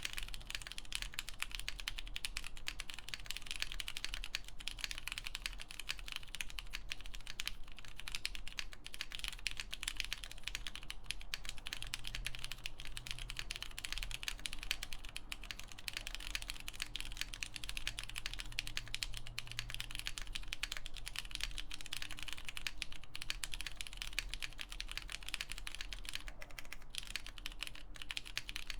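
Steady, fast typing on an MM Studio Class65 V3 mechanical keyboard fitted with lubed Cherry MX Purple switches, a polypropylene plate and Hammerworks CRP keycaps: a dense, continuous stream of keystroke clacks.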